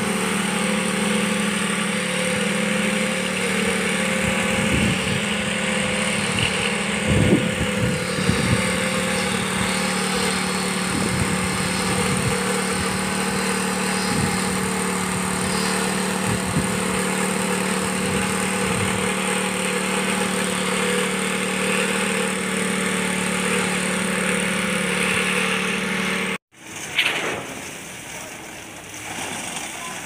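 Engine-driven concrete pouring equipment running loud and steady at an even pitch, with a few irregular knocks in the middle. It stops abruptly about 26 seconds in, leaving quieter construction-site noise.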